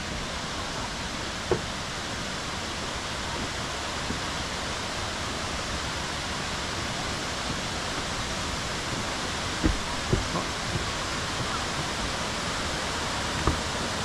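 Steady rushing of a mountain river and waterfall, slowly growing louder, with a few soft knocks now and then.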